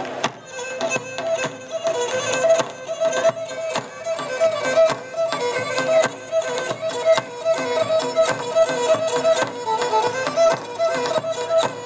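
Live Pontic folk dance music: a Pontic lyra (kemenche) bowing a tune in double stops over a held drone, with a large double-headed daouli drum beating a steady rhythm.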